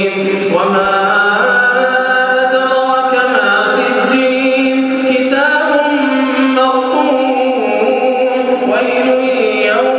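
A man's solo voice reciting the Quran in melodic tajweed style, holding long drawn-out notes that step and slide between pitches.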